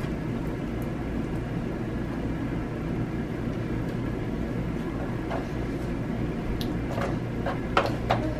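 Steady low background hum, with soft clicks and crackles from fluffy slime being stretched and poked, several of them in the last couple of seconds.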